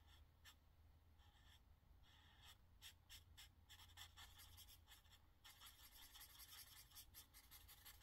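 Faint scratching and squeaking of Ohuhu alcohol markers stroking across paper as areas are colored in. The short strokes come irregularly and grow denser about halfway through.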